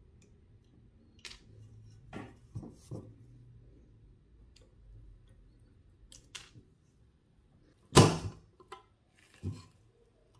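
Small precision screwdriver working on a metal model car body: scattered light clicks and scrapes as the screws are worked, with a sharp knock about eight seconds in and a smaller one about a second and a half later.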